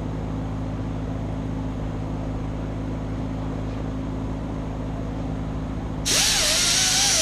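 An electric grinder's motor runs with a steady hum. About six seconds in, the wheel meets the metal chain and a loud, hissing grind starts suddenly, with a wavering whine over it.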